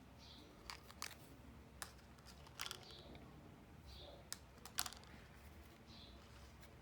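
Small hard plastic toy pieces being handled, giving a few sparse light clicks and taps with soft rustles between them.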